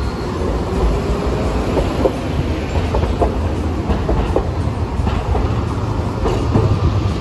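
Hiroden 3900-series "Green Liner" articulated streetcar rolling past on street track with a low rumble. Its wheels click over the rail joints, the clicks mostly coming in close pairs about once a second as each bogie crosses.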